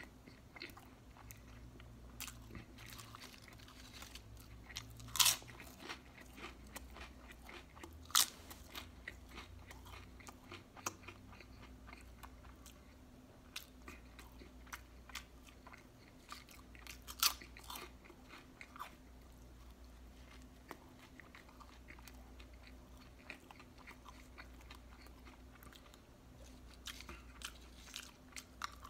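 Close-miked chewing and wet mouth sounds of eating a pulled pork barbecue sandwich with coleslaw, with scattered sharp crunches, the loudest about five, eight and seventeen seconds in.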